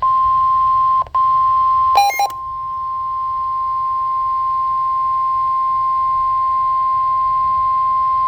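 NOAA Weather Radio warning alarm tone: one steady high tone near 1050 Hz, sounding ahead of a severe thunderstorm warning message. It drops out for an instant about a second in, and a short burst of beeping tones cuts across it about two seconds in.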